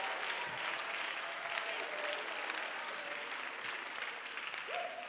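Church congregation applauding, with a few voices calling out; the clapping tails off near the end.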